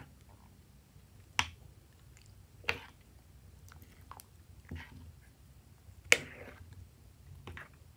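Glossy slime being pressed and pulled by hand in a glass tray, giving about five sharp, sticky pops and clicks at irregular intervals, the loudest about six seconds in.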